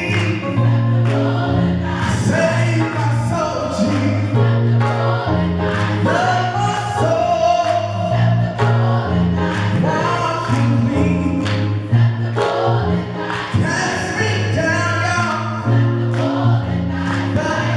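Gospel choir singing in harmony over a keyboard's steady bass notes, with rhythmic hand-clapping about twice a second.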